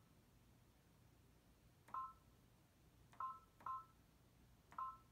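Baby Lock Destiny II sewing and embroidery machine's touchscreen beeping as letters are tapped in with a stylus: four short two-tone key beeps, irregularly spaced, the first about two seconds in and the other three over the next three seconds.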